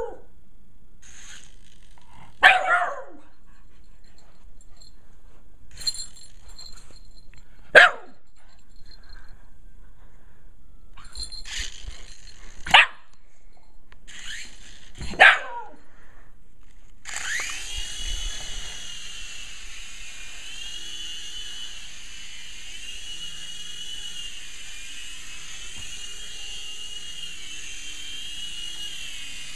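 Shiba Inu barking a few times in short, sharp barks. A little past halfway, a toy remote-control helicopter's small electric motor and rotor start up and keep running in a steady, high whine whose pitch wavers slightly.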